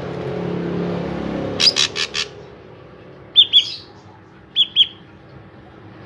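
Ashy drongo calling: four harsh notes in quick succession, then two pairs of short, clear notes about a second apart, over a low hum that fades early on.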